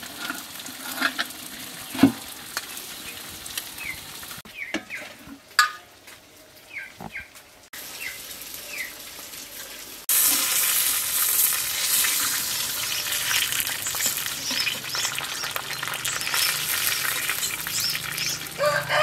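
Fish frying in hot oil: a loud, steady sizzle with fine crackling that starts about halfway through. Before it, a few quieter clinks of a spoon on a metal pot and some short bird chirps.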